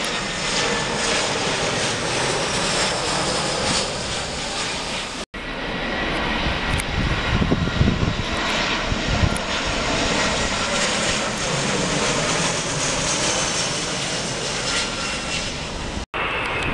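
Airbus A320-family jet airliners on approach passing low, a steady jet engine roar with a faint high whine that drifts down in pitch. The sound drops out for an instant twice, about five seconds in and near the end, where one pass is cut to the next.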